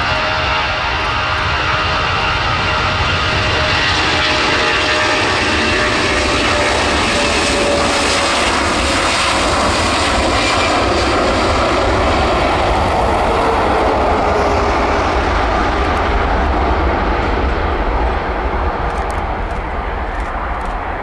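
Four CFM56 turbofan engines of an Airbus A340-300 running at takeoff power as the airliner accelerates past on its takeoff roll. Loud, steady jet noise with a tone that slides slowly lower as it goes by, easing off a little near the end.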